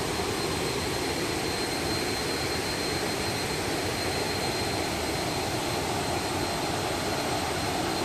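A row of low waterfall cascades pouring into a pool: a steady, even rush of falling water.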